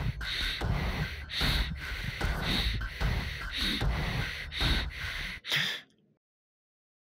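A person's heavy, gasping breaths, about one a second, over a low rumble. It cuts off abruptly to dead silence about six seconds in.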